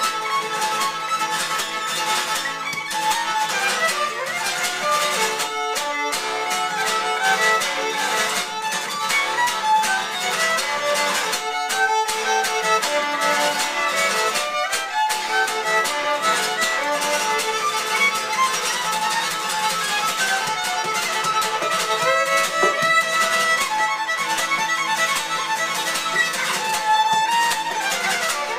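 Violin and acoustic guitar playing a tune as a duo: the violin carries the melody, with the guitar accompanying underneath.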